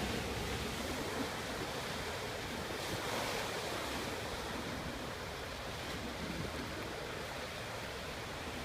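Sea waves washing against a rocky shore, a steady rushing surge that swells about three seconds in.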